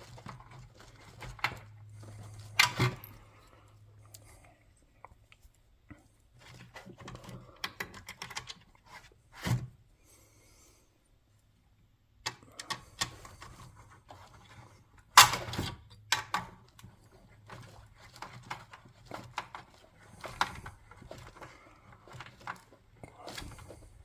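Scattered clicks, knocks and rattles of screws and a driver being handled on the plastic housing of a garage door opener, with one sharp knock about halfway through.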